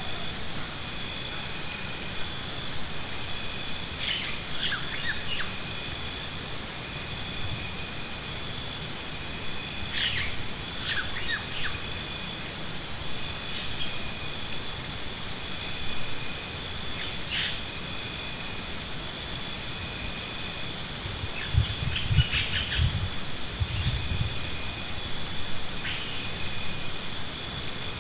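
Insects singing: a steady high-pitched shrill, with a pulsing trill that swells for a few seconds at a time and eases off, over and over. A few short chirps come in between.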